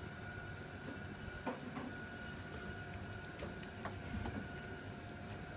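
Steady low mechanical hum with a faint high whine over it, and a few soft clicks.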